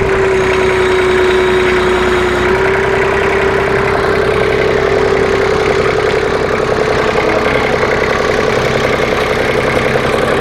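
Engine running steadily at idle, with a constant whine that steps slightly up in pitch about two and a half seconds in.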